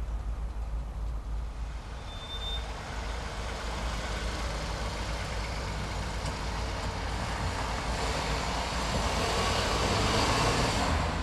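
Road vehicle noise: a steady low rumble with a rushing noise that grows louder and then cuts off suddenly near the end. There is a brief high chirp about two seconds in.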